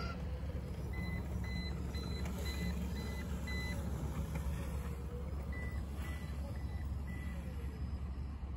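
Hoverboard go-kart beeping: two runs of short high electronic beeps, about two a second, with a pause between them, over a steady low rumble.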